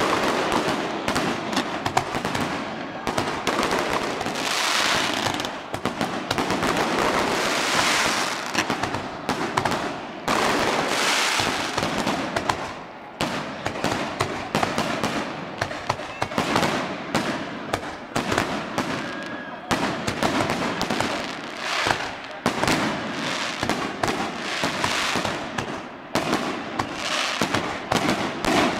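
Aerial fireworks shells bursting overhead in a dense, continuous barrage of overlapping bangs and crackling.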